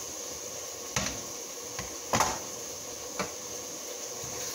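Three sharp knocks of kitchen utensils against cookware, about a second apart with the middle one loudest, as a metal spoon is handled and set down on a tray, over a steady high hiss.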